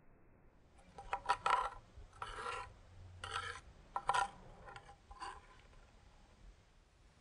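A metal spoon scraping ground spice paste (bumbu uleg) out of a cobek mortar, in about six short scrapes over four seconds.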